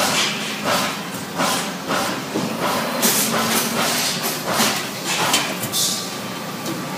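Amada press brake running through a two-bend sequence with its CNC back gauge repositioning between bends: machine noise that comes in irregular rushes, about one or two a second.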